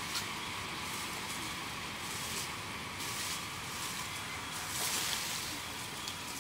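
Steady outdoor background noise: an even hiss with a faint steady tone in it, swelling briefly twice.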